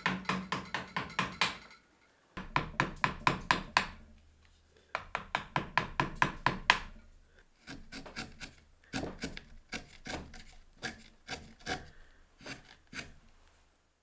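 Steel carving gouge cutting chips from a wooden pot lid held in a vise, struck by a mallet in quick runs of sharp taps, about five a second, with short pauses between runs.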